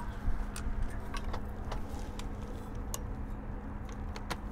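A few light metallic clicks and taps as a socket on an extension is handled and fitted onto a driveshaft-to-differential flange bolt, over a faint steady hum.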